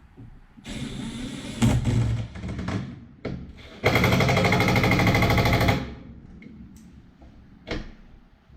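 Cordless impact driver running in two bursts of about two seconds each, hammering fast as it runs bolts in; the second burst is steadier and louder.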